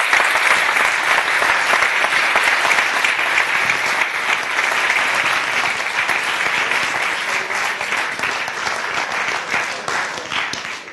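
Audience applauding, a dense steady clapping that slowly thins toward the end.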